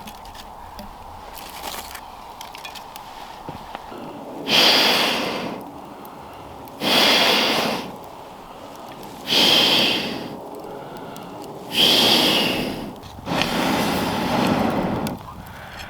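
A person blowing hard in long puffs, six times, about one every two and a half seconds.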